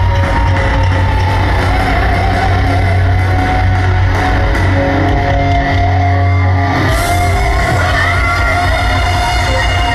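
Heavy metal band playing live at high volume through a large PA, picked up by a phone in the crowd: distorted electric guitars with held notes over drums and bass, and sliding high notes about seven seconds in.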